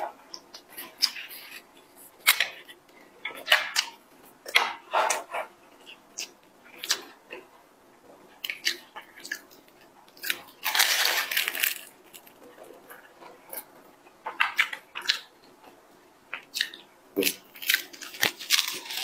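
Close-miked eating: scattered crisp bites and chewing of a flaky tart pastry, with one longer noisy burst about eleven seconds in.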